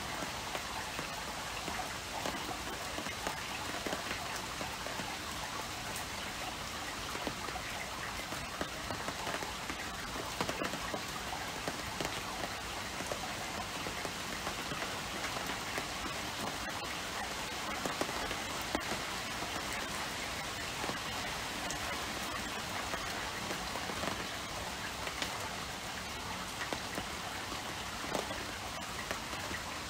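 Heavy rain falling steadily on a courtyard, with scattered sharper splashes of single drops.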